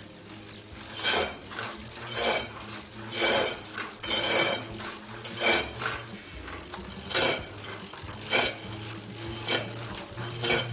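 Tacx NEO series trainer's motor brake giving a metallic scraping noise while pedalled, swelling about once a second. This noise can point to a problem with the hub axle at the centre of the motor brake.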